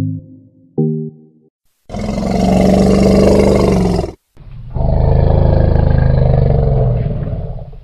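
An elephant roaring twice, long and loud, with a short break between the two roars; each roar lasts two to three seconds.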